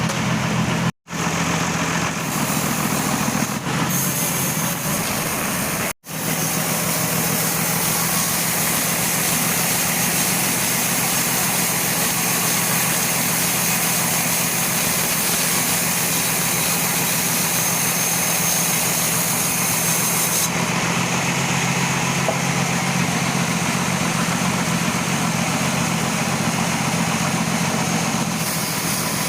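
Powered sawmill saw ripping a teak log lengthwise: a steady engine hum under a harsh hiss of the blade in the wood. The sound cuts out for an instant twice in the first six seconds, and the high hiss eases about twenty seconds in.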